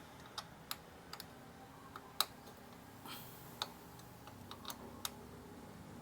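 Light, irregular clicks and taps, about eight of them, the loudest a little over two seconds in, from hands handling tools and parts while working on a motorcycle frame-slider mount.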